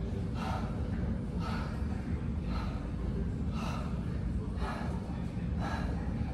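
A person breathing hard in short, forceful breaths, about one a second, over a steady low hum of gym background noise.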